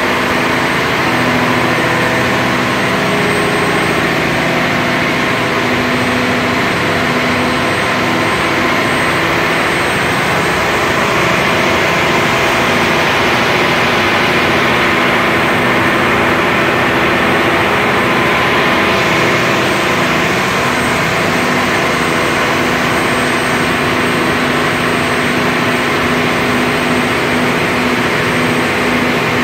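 Mitsubishi S12R-MPTA V12 turbocharged marine diesel engine running steadily on a test run after a complete overhaul, heard close up in the engine room.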